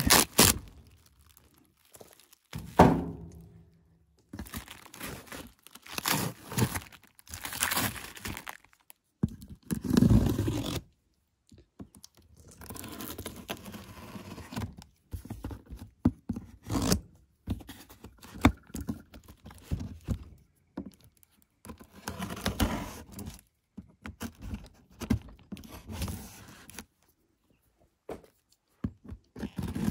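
A cardboard shipping box and its plastic wrapping being cut open with a pocket knife and handled: irregular bursts of scraping, tearing and knocking with short quiet gaps, the loudest knocks about 3 s and 10 s in.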